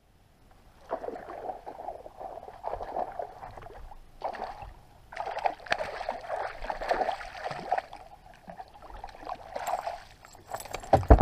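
Water slapping and sloshing at the boat's hull and the surface, with a burst of splashing from about five to eight seconds in as a pike strikes the spinnerbait and thrashes near the boat. A hard knock on the boat near the end.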